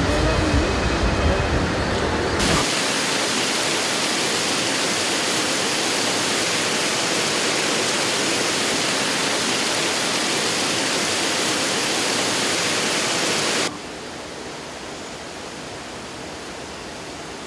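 Steady rushing of water churned by surface aerators in a wastewater treatment plant's aeration basins. It starts abruptly a couple of seconds in and cuts off abruptly near the end, leaving a quieter steady hiss.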